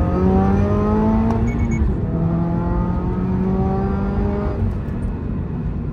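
Turbocharged 2.4-litre flat-four of a 2022 Subaru BRZ, heard from inside the cabin, accelerating hard in second gear with its pitch rising. It shifts to third about two seconds in, pulls again in third, and the throttle is lifted near the end.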